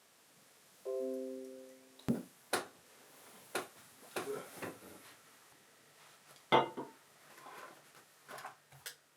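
Soft background music from the Windows 10 setup screen: a held chord about a second in, then scattered piano-like notes.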